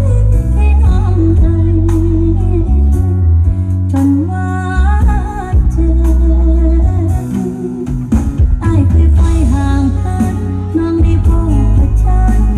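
A song with a singer and heavy, sustained bass, played loud through an outdoor cinema's large PA sound system during a sound test.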